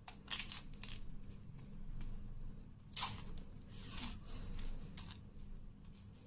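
Sealing tape being peeled off the rim of a round metal tin of .177 diabolo air-gun pellets, in several short ripping strokes, the loudest about three seconds in.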